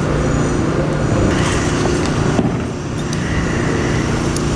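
Steady machine drone like an engine running, a continuous low hum with a few faint clicks over it.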